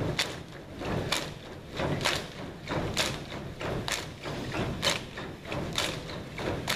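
A troupe of dancers' feet landing together on the stage floor in a steady rhythm, about one heavy thud a second with lighter footfalls in between.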